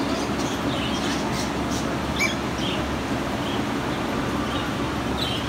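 Birds chirping in short, high calls several times over a steady rumbling background noise.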